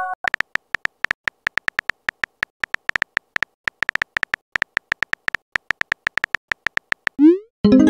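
Simulated phone-keyboard typing sounds from a texting-story app: short, high electronic ticks, about seven a second and unevenly spaced, one per letter. Near the end comes a quick rising whoosh and then a short chime as the message is sent.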